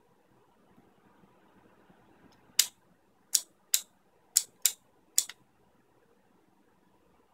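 Six sharp clicks from the micro switch inside a 3D-printed pushbutton as the button is pressed, spread irregularly over about three seconds starting a little over two seconds in.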